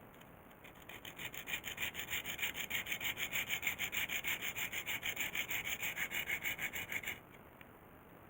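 Hand hacksaw sawing in fast, even back-and-forth strokes. It starts about a second in and stops abruptly about seven seconds in.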